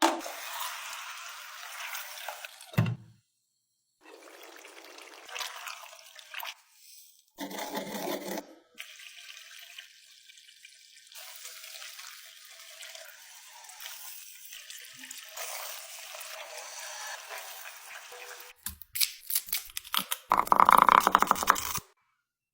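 A series of short food-preparation sounds split by brief silences, among them liquid being poured. A sharp knock comes about three seconds in, and a louder, rattling burst near the end.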